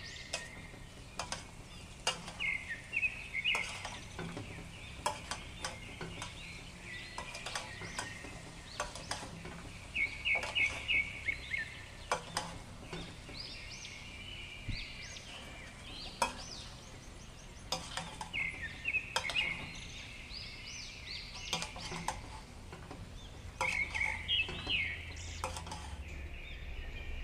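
A spoon stirring and turning cooked chicken biryani in a pot, with repeated scrapes and clicks against the pot. Birds chirp in the background in several short runs.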